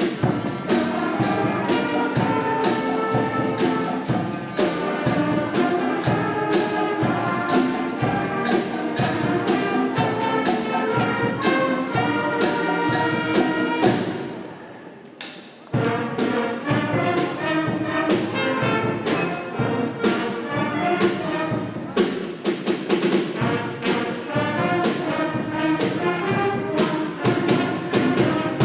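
High school concert band playing, with woodwinds and brass over percussion keeping a steady beat. The music fades away about fourteen seconds in and starts again abruptly a second and a half later.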